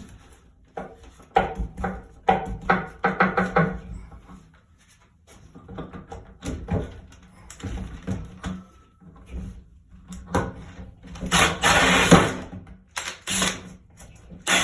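Irregular knocks, clicks and clatter from wood and tools being handled on a workbench, with a louder rushing noise that lasts about a second and a half around eleven seconds in.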